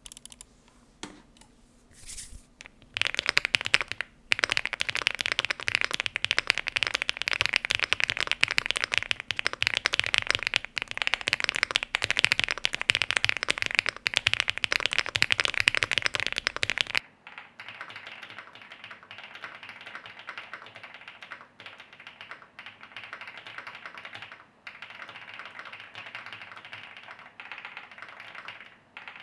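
Fast typing on an Elecfox INKY75 mechanical keyboard: a dense stream of keystroke clacks. About 17 seconds in it cuts to a second, quieter typing take with less bass.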